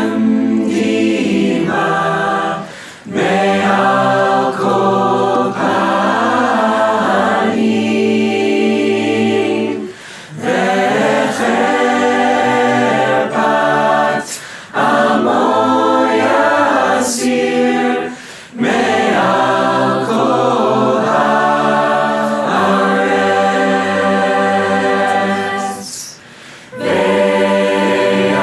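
Mixed-voice virtual choir of many separately recorded singers, singing a cappella in sustained chords, with short breaks between phrases.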